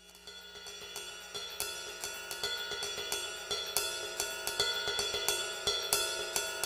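Background music fading in: a steady beat of cymbal and hi-hat strokes over sustained tones, growing louder throughout.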